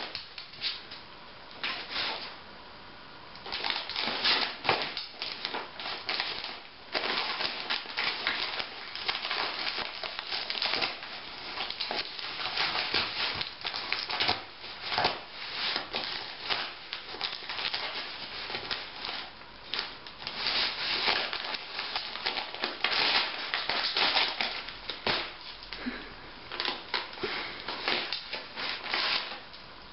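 Wrapping paper being ripped and crinkled as a dog tears it off a wrapped plush toy. It comes in irregular bursts of tearing and rustling, with a short lull a second or two in.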